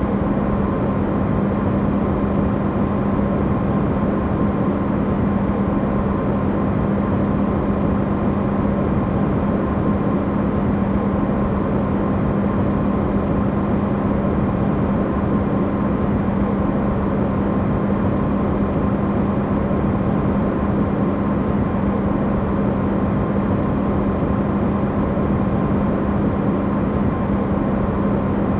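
Amplified recording of an Electrolux refrigerator running: a steady, unchanging hum with a strong low tone and fainter higher ones over a bed of noise, used as white noise.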